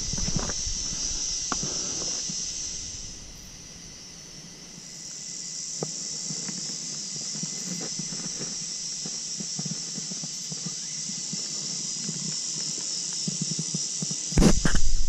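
Cicadas droning steadily in the bush. The drone fades for a second or two about three seconds in, then comes back. Faint scuffs of hands and feet on rock lie beneath it, and there is a loud burst of knocking and handling noise near the end.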